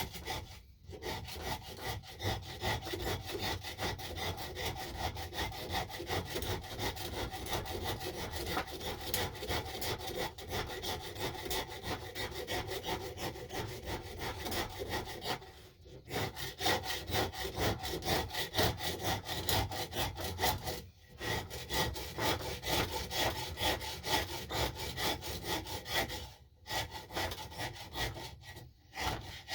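A hand tool worked back and forth over a wooden axe handle that is being shaped, making a rapid run of rasping strokes. The strokes stop briefly a few times.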